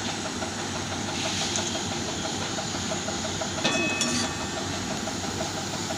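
Thick ridge gourd and poppy-seed paste simmering in a metal kadai, a steady hiss of fine rapid pops. A metal spoon stirs it and clinks against the pan once about three and a half seconds in.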